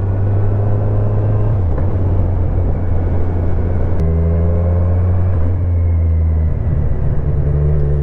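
Kawasaki Z1000's inline-four engine running steadily at road speed, with wind and road noise. The engine note changes abruptly about four seconds in and wavers briefly near the end.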